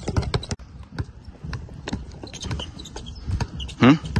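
Several basketballs being dribbled at once on a plastic tile court: a fast, irregular patter of overlapping bounces. A brief pitched call near the end is the loudest sound.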